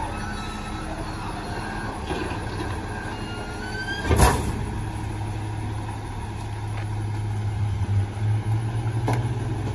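Rear-loader garbage truck's diesel engine running steadily, picking up speed near the end. Faint squeals come through early on, and there is one loud metal clank about four seconds in.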